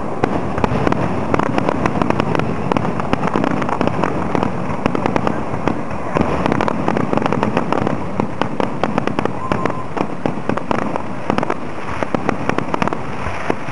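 Aerial fireworks going off in a dense, unbroken barrage: many bangs and crackling bursts in quick succession.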